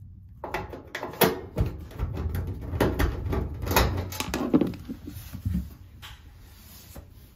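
Irregular metallic clicks, scrapes and knocks of an 8 mm socket driver backing out the screws that hold a Speed Queen electric dryer's bottom front panel. The handling dies down after about six seconds.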